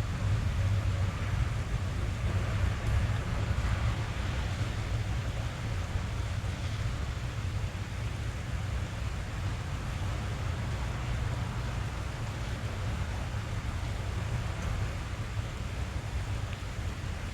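Steady rain drumming on a car roof and running down the glass, heard from inside the cabin: an even hiss over a deep, constant rumble.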